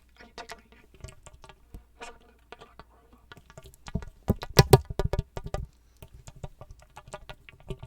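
Close-miked crinkling of a crinkly trigger material right at the microphone: a dense run of sharp crackles and clicks, loudest about four to five and a half seconds in.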